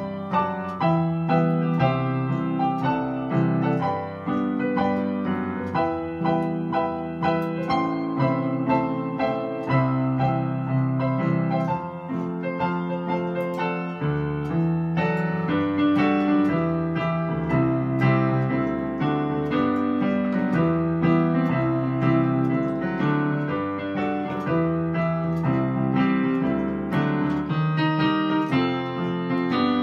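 Digital keyboard on a piano voice, played with both hands: a flowing melody over steady chords in the bass, continuous throughout.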